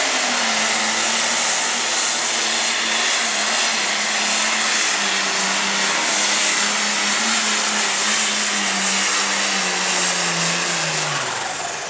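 Turbocharged diesel engine of an Allis-Chalmers light pro stock pulling tractor running flat out under load as it drags the sled, with a strong high hiss over the engine note. The engine pitch sags slowly, then drops away near the end as the tractor slows.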